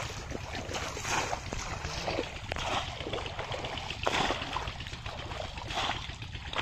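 Shallow muddy water splashing and sloshing as a bamboo plunge-basket fish trap is thrust down into it again and again, a splash about every second and a half, with the wading legs stirring the water in between.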